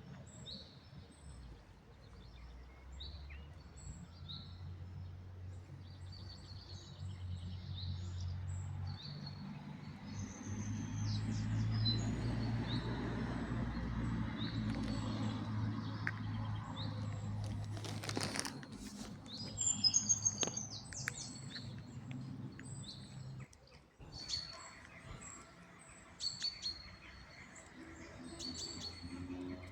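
Small birds chirping repeatedly in short high calls, over a low steady rumble that stops abruptly about three quarters of the way through. A brief loud rustle or noise comes a little past halfway.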